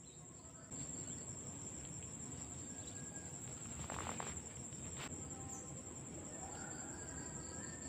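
High, steady insect trill with a faint even pulsing, which grows louder a little under a second in. A short rustle about four seconds in and a sharp click about a second later come from hands working a lure's hook out of a snakehead's mouth.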